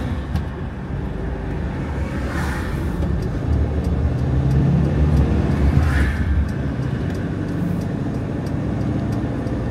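A vehicle driving on the road: steady engine and road noise, swelling somewhat in the middle, with a few passing whooshes.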